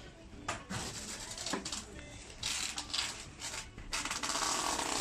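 Rustling and rubbing handling noises with a few light knocks, then a longer, louder rustle from about four seconds in.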